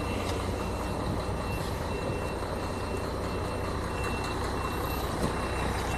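Steady low engine rumble of motor vehicles, with a faint high beep repeating about one and a half times a second, like a vehicle's reversing alarm.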